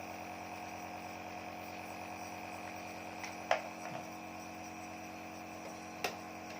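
Compressor nebulizer running with a steady electric hum, with two brief clicks, one about halfway and one near the end.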